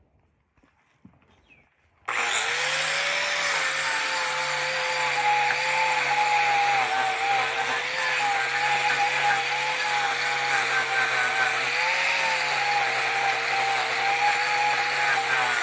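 An angle grinder fitted with a King Arthur's Tools shaping disc starts up about two seconds in and runs steadily against bishop wood, smoothing the outside of a root bowl; its whine dips slightly in pitch now and then as the disc bears into the wood.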